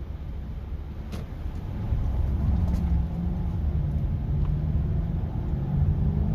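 Lexus LS460's V8 engine and road rumble as the car is driven on a road test after a tune-up; the engine gets louder about two seconds in as the car picks up speed.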